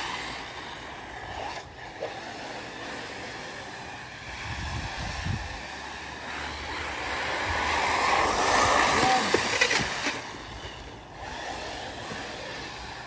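Arrma Typhon 6S electric RC buggies racing on a dirt track: the whine of their brushless motors and drivetrains with tyres on dirt, growing louder for a few seconds past the middle as the cars come close, then fading.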